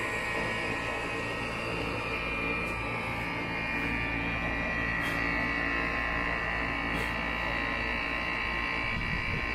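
Outdoor central AC condensing unit running, with its compressor and newly replaced condenser fan motor going together: a steady electric hum.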